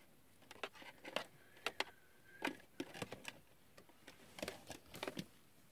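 Faint, irregular light clicks and rustles of hands handling a large plastic action figure dressed in tinsel garland.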